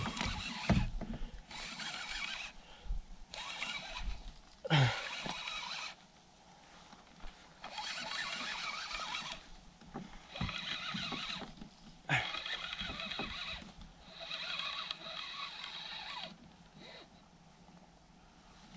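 Fishing reel working under the weight of a big hooked pike, in repeated whirring bursts of about a second or two each with short pauses between, and a few sharp clicks.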